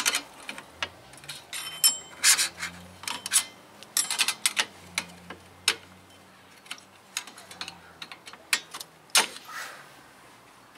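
Irregular metal clicks, clinks and scrapes of a screwdriver prying at the shoe springs of a 2014 Jeep Patriot's rear drum brake, with a brief metallic ring about two seconds in and a louder scrape near the end. A faint low hum runs underneath for most of it.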